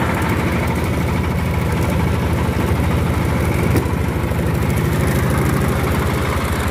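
Mitsubishi diesel generator set in a soundproofed canopy, running steadily at constant speed, fairly smooth and not noisy. A single short click comes a little past halfway.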